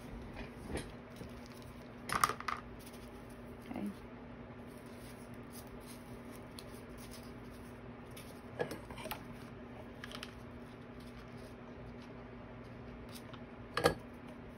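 A handful of plastic hot-glue sticks clattering down onto a table about two seconds in, followed by a few quieter knocks and clicks as fabric and a styrofoam disc are handled, with a sharp click near the end. A steady low hum sits underneath.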